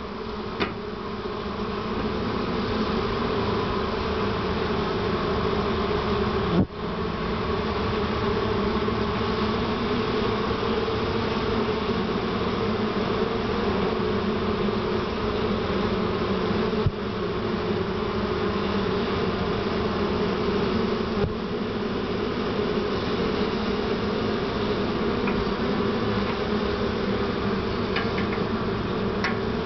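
A colony of honey bees nesting in a tree cavity, many bees buzzing together in a steady, even hum. Two brief knocks cut through it, about 7 and 17 seconds in.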